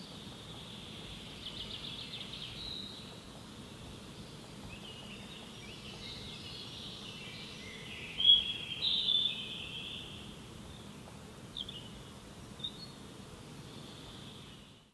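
Forest songbirds singing and chirping in short phrases over a steady high-pitched hiss, with the loudest burst of song about eight seconds in and a couple of single chirps near the end.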